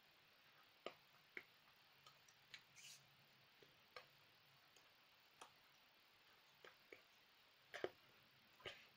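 Near silence: room tone with about a dozen faint, irregular small clicks and taps, the loudest near the end.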